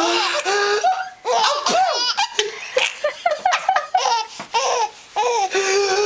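Six-month-old baby laughing hard, a string of short high belly laughs that rise and fall and break every half second or so.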